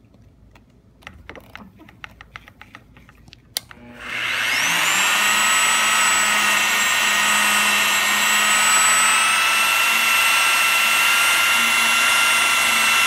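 A few light clicks and taps, then about four seconds in an electric buffer spins up with a rising whine and runs steadily, its pad polishing fresh paint where a run was scraped flat with a razor blade. It cuts off abruptly at the end.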